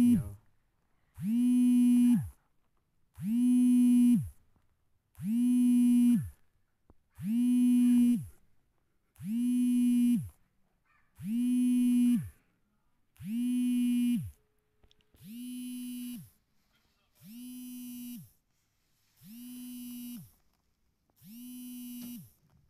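Mobile phone vibrating with an incoming call: a buzz about a second long repeating every two seconds, growing softer after about fifteen seconds.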